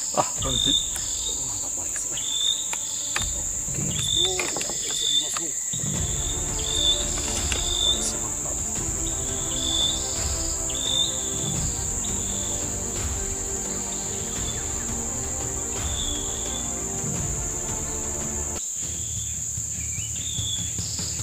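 Insects droning steadily at a high pitch, with short chirps repeating about once a second over the drone.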